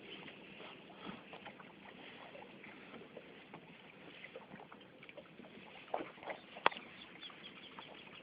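Water lapping against a small boat's hull, with scattered light knocks and one sharp click a little past two thirds of the way through.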